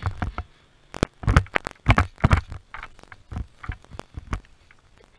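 Footsteps crunching and rustling through dry leaf litter at an uneven pace, lighter and sparser in the second half.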